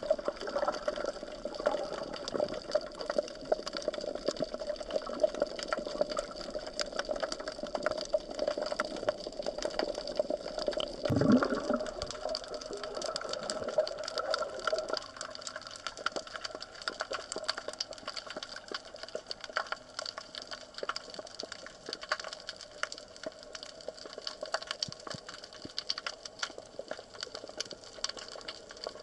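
Underwater ambience picked up by a submerged camera: a dense crackle of tiny clicks over a steady hum that fades about halfway through, with a short falling sound about eleven seconds in.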